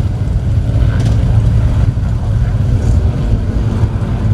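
P-51 Mustang warbirds' Packard Merlin V12 engines droning overhead, a steady low rumble.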